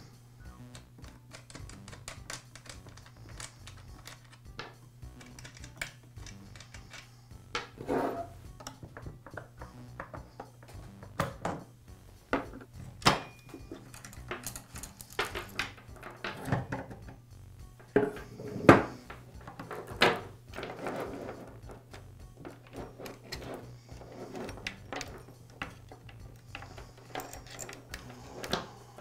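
Irregular clinks and knocks of metal chainsaw parts being handled on a wooden workbench as the side cover, bar nuts, guide bar and chain are taken off the saw, over quiet background music.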